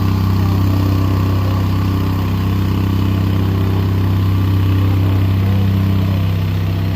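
An engine idling steadily with a low, even hum and no change in speed.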